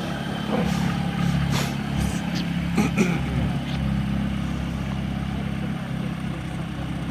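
An engine idling with a steady low hum, with a few short knocks about a second and a half in and again around three seconds.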